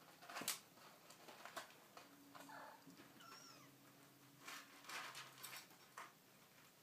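Four-week-old Abyssinian kittens at play: faint scattered knocks and scuffles, the loudest about half a second in, with a few thin, high kitten mews around the middle.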